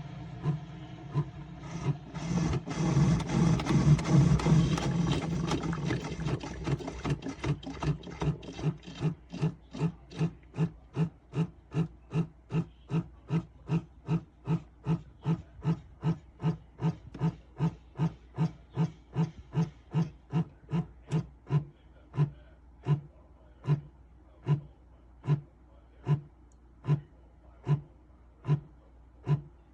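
Single-serve coffee brewer running: a loud hissing gush a couple of seconds in, then a long run of regular pulsing clicks with a low hum. The clicks start at about two a second and slow and thin out toward the end.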